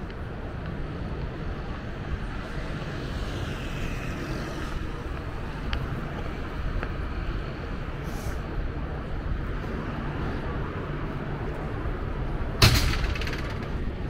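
Steady rumble of city street traffic, with a sudden loud hiss near the end that dies away over about a second.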